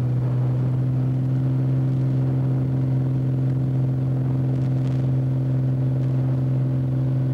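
Light aircraft's piston engine and propeller running at steady takeoff power, a constant low drone heard from inside the cabin during the takeoff roll and climb.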